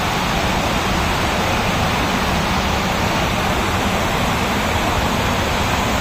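Water pouring over a dam's overflowing spillway and crashing into the river below: a loud, steady rushing.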